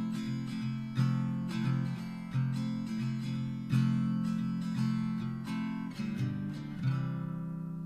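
Background music of strummed guitar chords, ending on a final chord about seven seconds in that rings out and fades.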